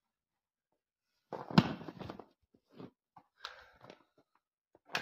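Handling noise from jump-lead cables being readied: a sharp knock about one and a half seconds in amid a second of rustling, then a brief crunch and a few small clicks.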